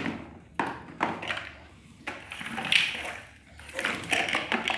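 Hollow plastic building blocks clattering and knocking on a tiled floor as the plastic bucket of a ride-on toy excavator scoops and pushes them. The knocks are sharp and separate: a few early, and a quick run of clicks near the end.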